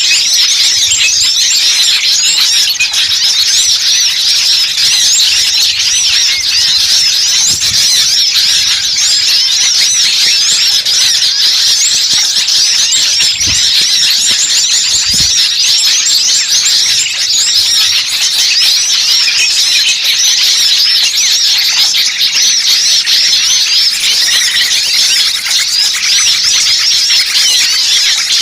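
A dense chorus of many small birds chirping and twittering at once in quick, overlapping high calls, an agitated noisy-flock lure recording ("burcil ribut") for drawing small wild birds in. Two brief low thumps come about halfway through.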